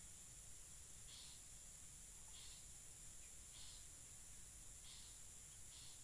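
Faint outdoor insect chorus: a steady high-pitched buzz, with a short high chirp repeating about every second and a quarter.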